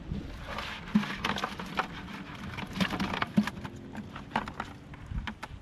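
A cast net being worked down into a plastic bucket to empty out the catch: irregular clicks and knocks with a rustling hiss, sharpest about a second in and again past the middle.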